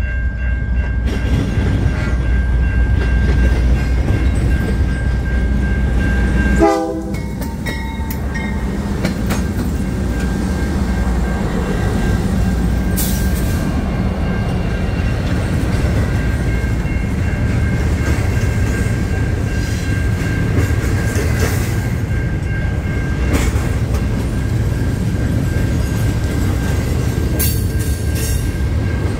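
CN freight train passing: the lead diesel locomotive's horn sounds and cuts off suddenly about seven seconds in. Then the locomotives and a long line of double-stacked container well cars and boxcars roll by with a steady rumble and occasional wheel clicks.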